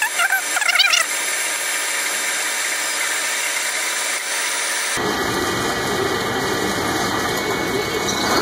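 Metal lathe center-drilling the end of a spinning steel bar under flood coolant: a brief wavering squeal from the drill in the first second, then a steady hiss of cutting and coolant. About five seconds in, the sound changes abruptly to a lower, rougher machine noise.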